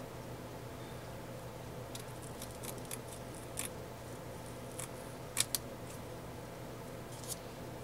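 Scissors snipping ribbon in short, irregular cuts, trimming small round spots, with the loudest pair of snips a little after halfway. A steady low hum runs underneath.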